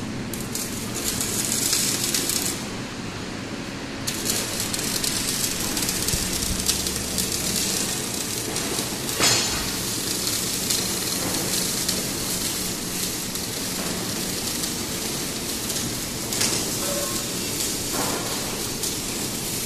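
Steady workshop noise around a beam welding machine: a constant hiss with scattered crackles and clicks, and one sharper click about nine seconds in.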